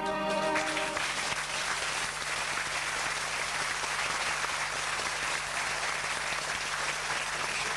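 Concert audience applauding. The song's last held chord stops about half a second in, and the clapping runs on steadily.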